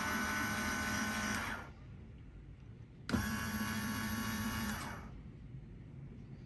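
Electric motor of a rise-and-fall seat pedestal running on about 12 volts, switched by a double-pole double-throw switch wired as an H-bridge, with a steady whine. It stops about a second and a half in, then runs again for nearly two seconds from about three seconds in.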